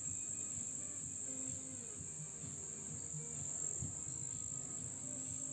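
Steady high-pitched insect chorus, typical of crickets, unbroken throughout, over a faint low rumble.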